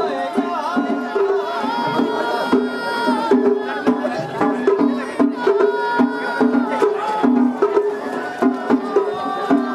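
Traditional Japanese festival music with drums beating a steady, repeating rhythm and pitched parts over it, amid a festival crowd.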